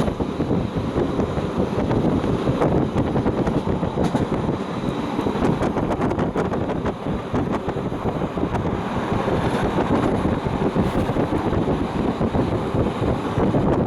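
Steady rumbling running noise of a Transilien RIB stainless-steel commuter train, heard from on board while it moves, with wind buffeting the microphone.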